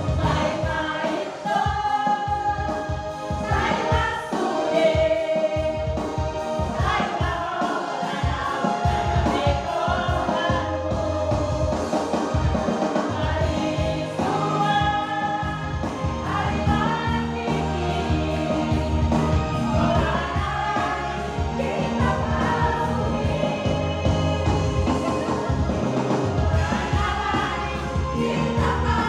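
Choir singing with instrumental accompaniment, in the style of gospel or Christian music.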